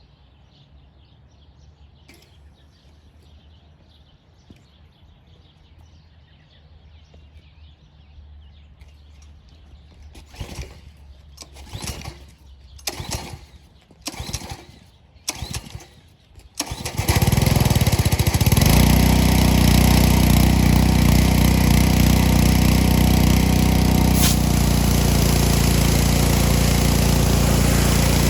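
Small gasoline engine of a pressure washer being pull-started: a few quiet seconds, then five rope pulls about a second apart, each giving a short cough. The engine catches a little past halfway through and keeps running loud and steady.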